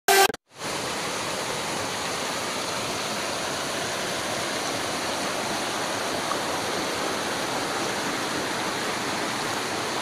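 Water rushing and splashing steadily over boulders in a rocky hill stream with small cascades. It is preceded by a brief tone at the very start and a short gap.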